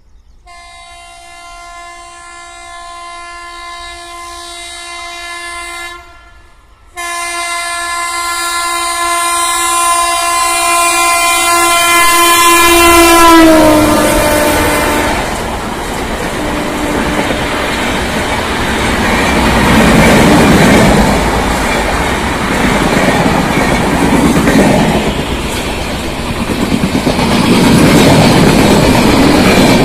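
WAP-7 electric locomotive's horn sounding two long blasts as an express train approaches at speed, the second falling in pitch as the locomotive passes. Then the rush and wheel clatter of its LHB coaches running past, loud and close.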